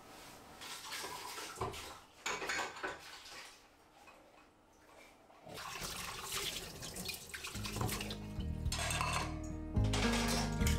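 Dishes clinking in a stainless steel sink, then a kitchen tap running as a bowl is rinsed under it and set into a wire dish rack. Soft background music comes in partway through.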